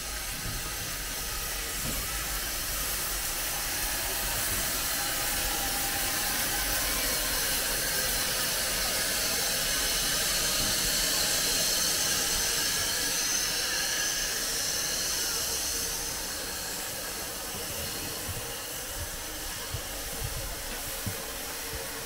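Steam hissing steadily from a narrow-gauge steam locomotive. It swells to its loudest in the middle and eases off later, with a few light clicks near the end.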